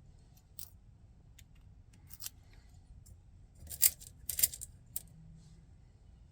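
Small metal clicks and taps of key pins and tools being handled in a doorknob lock cylinder while it is rekeyed. A few light clicks come first, then a louder quick cluster a little under four seconds in, and one more about a second later.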